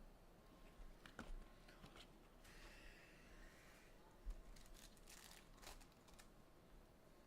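Faint tearing and crinkling of plastic wrapping as a sealed trading card box is opened, with a few light clicks and crackles.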